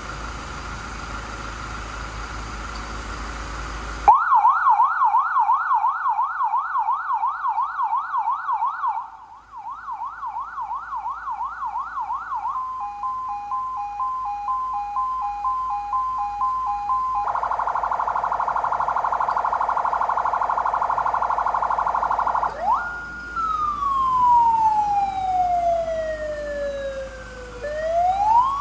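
Electronic vehicle siren stepping through its tones. After a few seconds of steady tone and hiss it gives a fast yelp sweeping up and down about three times a second, then a rapid two-tone hi-lo, then a harsh buzzing horn tone, then a wail that falls slowly and rises again near the end.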